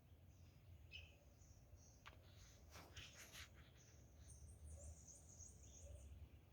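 Faint garden birdsong: scattered short, high chirps and twitters, thickest in the second half, with a few brief clicks near the middle over a steady low rumble.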